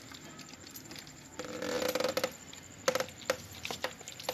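A hand squishing and kneading a thick fish-roe and gram-flour batter in a small steel bowl: a squelchy stretch of mixing about a second and a half in, then a few short metallic clinks as fingers and the bowl knock together.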